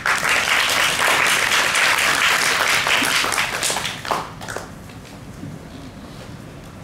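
Audience applauding, dense clapping for about four seconds that then dies away.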